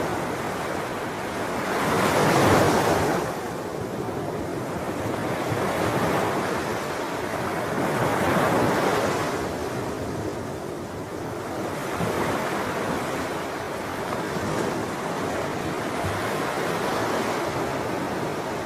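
Ocean waves washing ashore in a continuous surf, with a bigger wave breaking about two seconds in and another about eight seconds in, then smaller surges. Some wind noise on the microphone.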